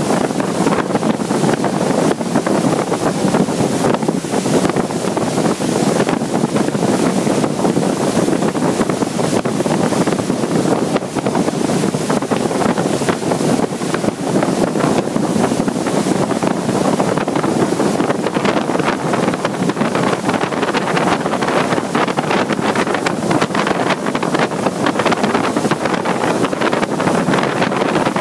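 Strong storm wind blowing, a loud, steady rush with constant buffeting on the microphone.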